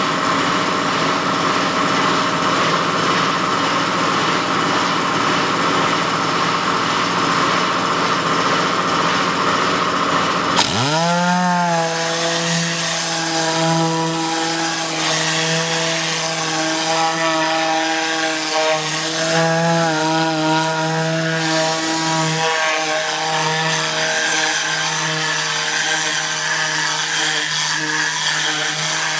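Tornador pneumatic cleaning gun running on compressed air: a steady hiss, then about ten seconds in a loud buzz that rises quickly in pitch and holds steady as the gun works the seat fabric.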